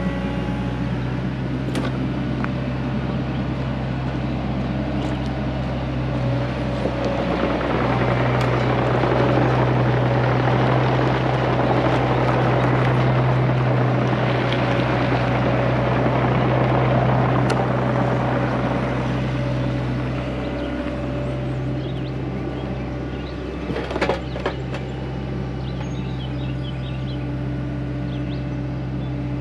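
Hyundai excavator's diesel engine running steadily as the machine tracks across gravel carrying a hanging concrete block. Engine and track noise swell and stay louder for several seconds in the middle, then ease off. A short sharp clank comes about three-quarters of the way through.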